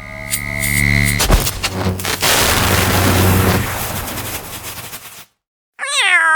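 Dramatic intro sound effects: a held tone with a ticking beat, a heavy hit, then a loud rushing blast that fades over about three seconds. After a moment's silence, a pitched, voice-like moan falls in pitch near the end.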